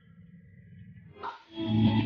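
A faint low hum, then background music comes in about one and a half seconds in.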